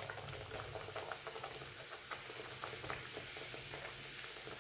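Spinach puri (palak puri) deep-frying in hot oil in a pan: a steady sizzle with many small crackles and pops.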